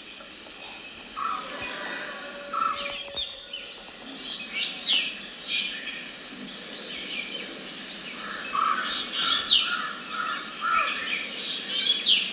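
Several small birds chirping and calling over steady outdoor background noise, with the chirps coming thicker in the second half.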